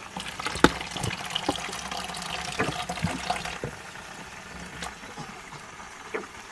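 Water running from a small sink tap, shutting off about three and a half seconds in, with scattered light clicks and knocks of handling throughout.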